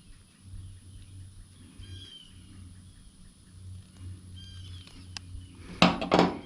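Faint bird chirps a few times over a low steady hum. Near the end comes a quick cluster of loud clicks and knocks from parts and tools being handled on the bench.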